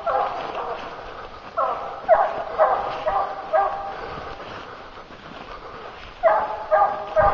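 Hunting hounds baying at a treed bear: drawn-out bays in bursts, a run of them about two seconds in and another near the end, with a quieter stretch between.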